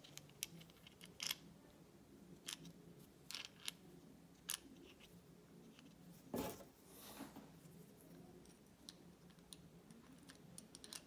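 Faint clicks and taps of small steel injection-pump parts being handled as a plunger barrel is worked into a Zexel injection pump housing, with one louder knock about six seconds in.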